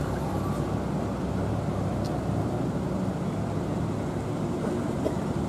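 Street traffic: car engines running in a slow-moving line of cars, a steady low rumble.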